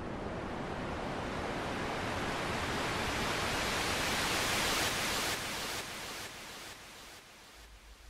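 A synthesized white-noise sweep from FL Studio's 3x Osc, run through a low-pass filter that opens up, so the hiss grows brighter and louder for about five seconds. It then dies away in a few stepped drops.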